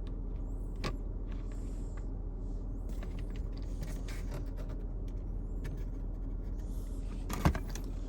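Car engine idling, a steady low rumble, with a few light handling clicks and a sharper click about seven and a half seconds in.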